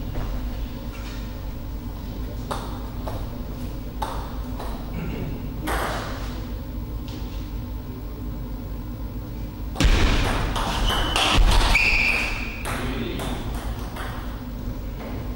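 Celluloid-type table tennis ball clicking sharply off bats and table, with scattered taps over a steady low hall hum. About ten seconds in there is a louder noisy stretch lasting around two seconds, with a short high squeal near its end.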